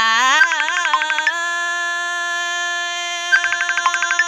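A woman singing a Red Dao (Iu Mien) folk song: a wavering, ornamented phrase that settles into one long held note, with a fast pulsing quaver near the end.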